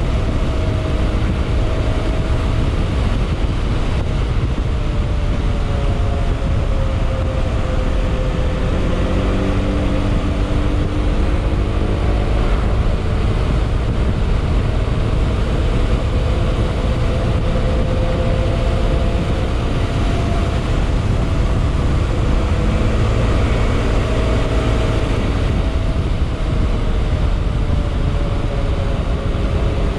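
Yamaha XMAX scooter's single-cylinder four-stroke engine and exhaust while riding, its pitch rising and falling gently with the throttle over a heavy, steady low rumble of wind and road.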